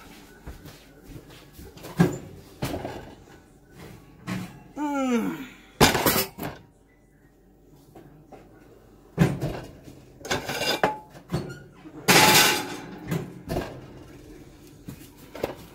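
Knocks, clatter and rustling from kitchen handling, with a short sliding tone that falls in pitch about five seconds in.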